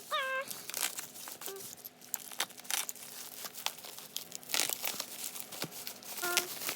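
Plastic packaging crinkling and tearing in irregular rustling bursts as an album is unwrapped. Two short pitched cries cut through it, one at the very start and one near the end.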